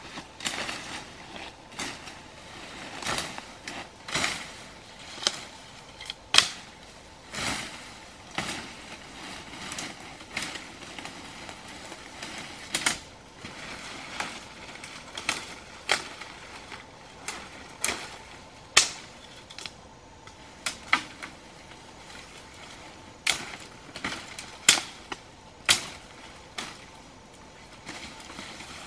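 Machete chopping through undergrowth and brush stems in sharp, irregular strikes, roughly one a second, with rustling of the cut vegetation between them.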